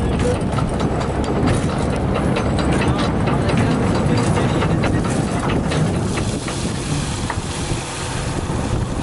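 Fishing boat's engine running steadily, with wind buffeting the microphone. Over the first several seconds a rapid scatter of sharp clicks and splashes comes from the laden net being hauled out of the sea.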